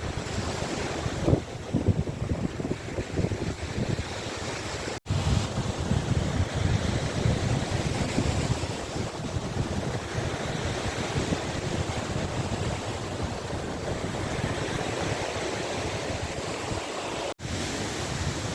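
Waves of the Gulf of Finland washing onto the shore, with wind buffeting the microphone. The sound cuts out briefly twice, about five seconds in and near the end.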